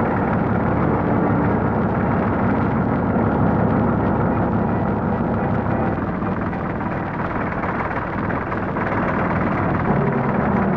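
A forage harvester and Barreiros trucks running together as the harvester blows chopped crop into a truck: a steady, dense engine and machinery noise that eases slightly about six seconds in.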